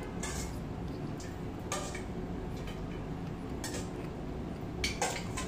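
A person chewing a crispy chicken burger with mouth closed, with a few short clicks and clatters, the loudest about five seconds in, over a steady low background hum.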